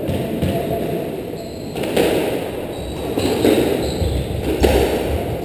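A squash ball knocked around the court, a few sharp knocks of ball on racket and walls, with brief high squeaks of court shoes on the wooden floor.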